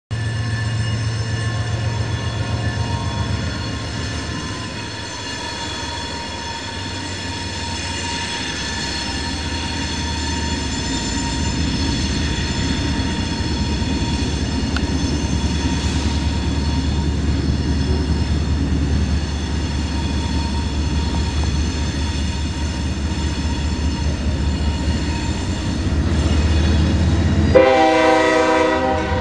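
CSX diesel freight train running past, the locomotive's diesel engine droning steadily under the sound of the rolling cars. Near the end a locomotive horn sounds once, loud, for about a second and a half.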